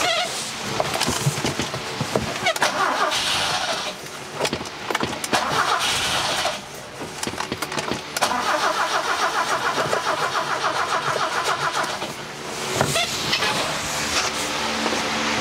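1968 BMW 1602's four-cylinder engine being cranked on the starter in several tries, sputtering as it tries to catch on a freshly fitted Weber carburetor, with pauses at about 4 and 7 seconds in. From about 8 seconds in it settles into a steady, regular beat and is running near the end.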